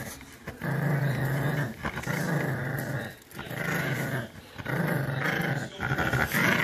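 Chihuahua puppy growling playfully while tugging on a plush toy, in about five growls of roughly a second each with short breaks between.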